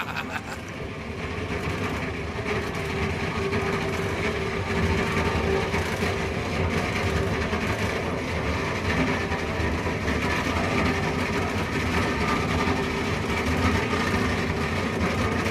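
Log debarker at work, its toothed rollers turning a log while steel teeth strip off the bark: a steady machine rumble with rapid rattling.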